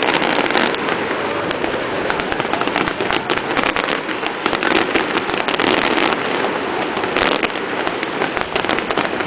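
Aerial fireworks bursting in a rapid, continuous run of pops and crackles.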